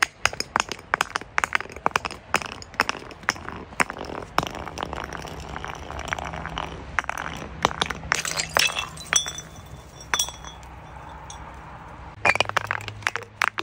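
Glass bottles breaking and clinking: a dense run of sharp cracks and clinks that thins out in the middle, then a brighter crash with glass ringing about eight seconds in, and another dense run of cracks near the end.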